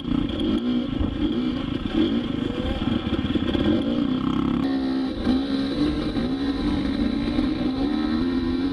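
Dirt bike engine heard from on board, revving up and down as the rider works the throttle through muddy turns. About halfway through it switches to a steady climb in pitch as the bike accelerates hard on pavement.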